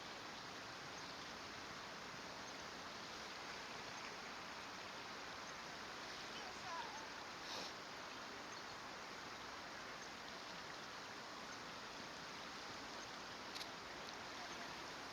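Steady rush of flowing water, with a couple of brief, faint high-pitched sounds about seven and a half seconds in and near the end.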